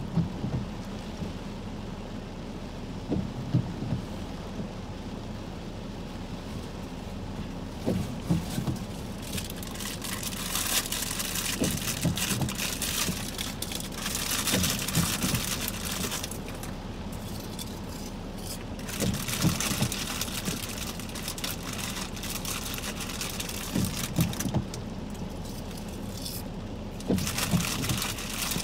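Heavy thunderstorm rain falling steadily, swelling into louder gusts of hiss several times as wind drives it, with scattered drops tapping close to the microphone.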